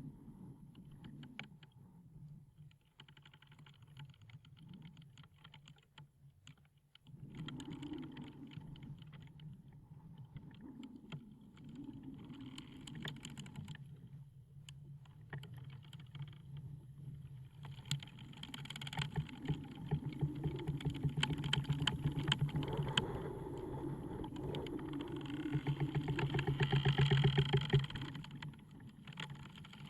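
Wooden ship's timbers creaking: dense runs of fast, fine clicking creaks over a steady low drone, swelling louder about two thirds of the way through and easing near the end.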